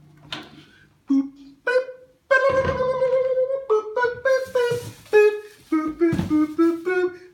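A man singing a quick wordless tune to himself. Short notes step up and down in pitch, starting about two seconds in.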